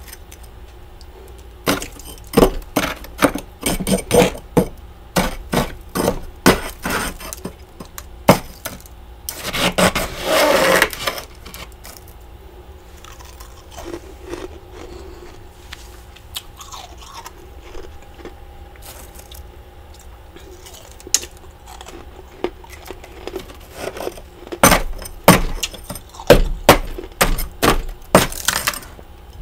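Metal spoon scraping and chipping thick frost buildup inside a mini fridge's freezer: a run of quick crunchy scrapes, a longer grinding scrape about ten seconds in, a quieter stretch, then another run of scrapes near the end.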